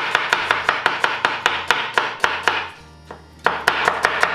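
Kitchen knife rapidly slicing an onion into thin lengthwise strips on a wooden cutting board: a quick, even run of about seven cuts a second, knife striking the board each stroke. It pauses for about half a second roughly three seconds in, then resumes.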